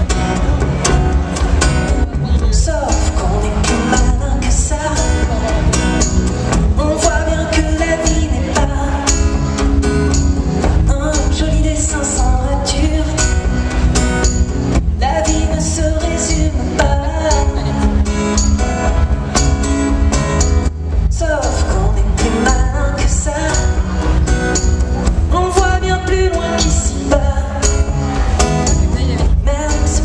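Live pop song played on stage: a male singer over acoustic guitars, heard from the audience in a large concert hall, with a heavy, boomy low end.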